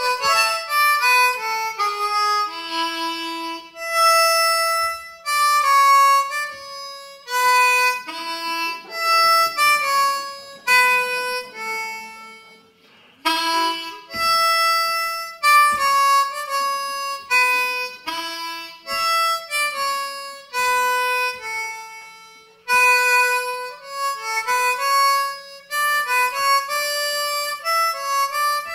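Solo blues harmonica played live, cupped against a microphone: melodic phrases of separate notes with short gaps between them, and a brief lull a little under halfway through.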